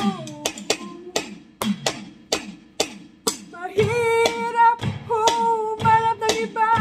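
A woman singing over a steady drum beat of sharp clicking hits, about three to four a second, with low falling drum tones. Her voice comes in about four seconds in, holding long notes.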